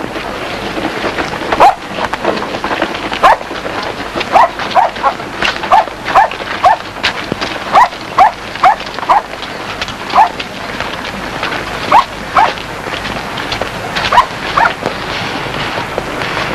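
A dog barking repeatedly in short sharp barks, roughly one or two a second with brief gaps, over a steady noisy background.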